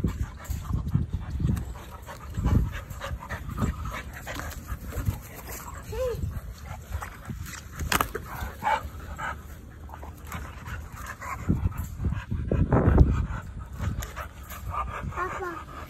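Dogs whimpering and panting, with a few short whines, over a low rumble that swells near the end.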